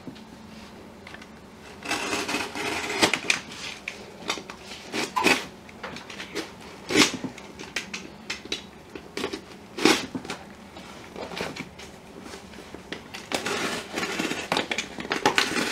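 Hands handling a cardboard shipping box: rustling and scraping of the cardboard and packing tape, with a few sharp knocks, and scissors cutting through the tape near the end.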